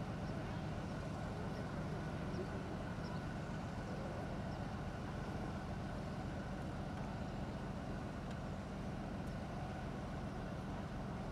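Heavy diesel engine of a military recovery vehicle idling steadily: a low, even hum that neither rises nor falls.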